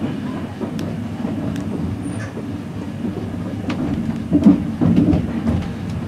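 Passenger train carriage running along the line, heard from inside the coach: a steady low rumble with a few sharp clicks and knocks from time to time.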